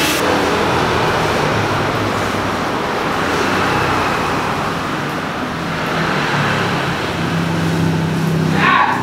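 Road traffic noise: a steady rush of passing vehicles with a low engine hum that grows stronger in the second half.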